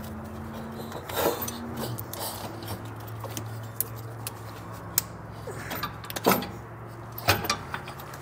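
Handling noise from an air helper spring assembly with metal brackets being worked into place under a pickup's frame: scattered knocks, clicks and rubbing, with a few sharper knocks in the second half. A steady low hum lies underneath.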